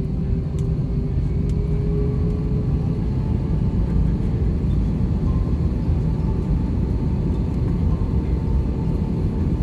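Airbus A321 cabin noise while taxiing after landing: a steady low rumble from the engines at idle, with a faint steady whine above it.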